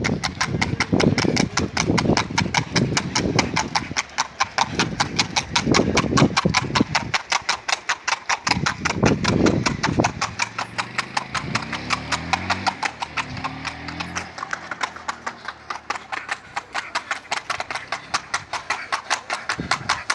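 Horse's hooves clip-clopping in a fast, even rhythm of about five beats a second.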